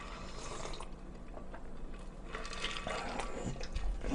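A man drinking from a stainless steel tumbler: faint liquid and swallowing sounds.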